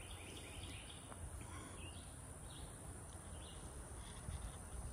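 Faint outdoor ambience with a small bird chirping several times in short, high calls, over a low rumble of wind on the microphone.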